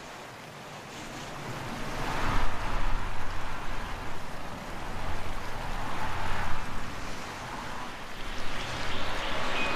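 Wind gusting, rising and falling in two long swells, with faint short high chirps repeating near the end.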